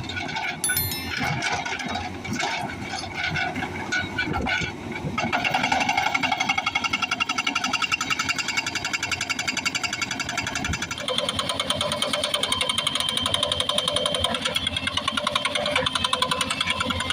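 Excavator-mounted hydraulic breaker hammer working on hard stone, over the excavator's engine. Irregular knocks for the first few seconds, then about five seconds in a fast, steady run of hammer blows sets in, its tone shifting about eleven seconds in.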